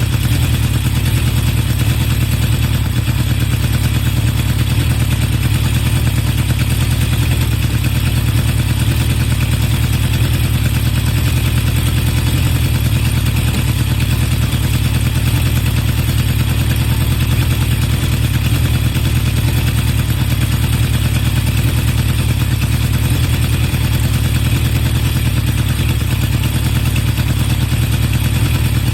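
Honda CB750 Four K3's air-cooled inline four running at a steady speed through exhaust mufflers with modified HM341 baffles, a deep even exhaust note with no rise or fall. It runs without sneezing at the carburettors, the sneeze having been mostly cured by lowering the too-high float level in the #3 carburettor.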